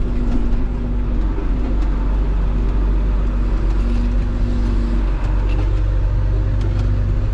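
Farm tractor engine running steadily, with a higher droning tone that fades in and out several times.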